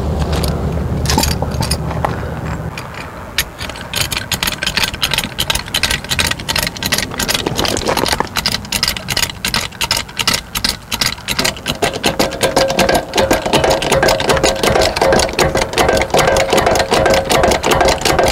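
A jack being worked under the camper's frame to lift the weight off a landing-gear leg: fast, even mechanical clicking about five times a second, with a steady whine joining about twelve seconds in.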